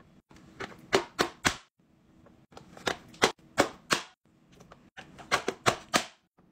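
Plastic vegetable dicer's lid pressed down repeatedly, forcing tomato through the grid blade. About a dozen sharp plastic clacks with a wet crunch, in three quick runs.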